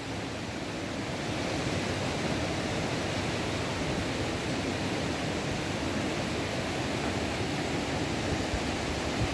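Steady, even rushing noise with a fluttering low rumble.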